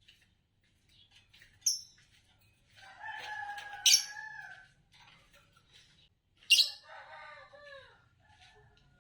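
Green Fischer's lovebirds chirping: a few sharp, high chirps, with two longer pitched calls, one about three seconds in and one about six and a half seconds in that slides down in pitch.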